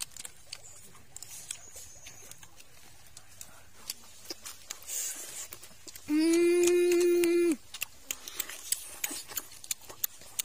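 Someone eating roasted chicken with the mouth close to the microphone: a scatter of wet chewing and lip-smacking clicks. About six seconds in, a loud closed-mouth "mmm" of enjoyment is held on one pitch for about a second and a half.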